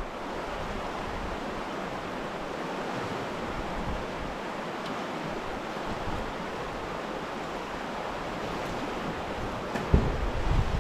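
Steady rushing of river water flowing below the bridge, with a brief low rumble near the end.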